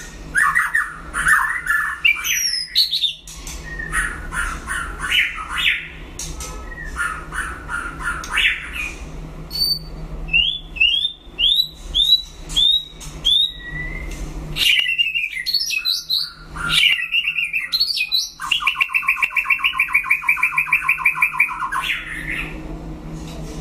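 White-rumped shama singing a loud, varied song of whistled phrases, including a run of short rising whistles, one about every half second, and later a fast, even trill lasting a few seconds.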